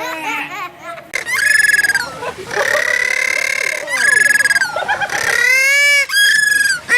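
A bird calling, loud and over and over: a string of drawn-out, pitched cries, each about a second long, some wavering and one rising in pitch.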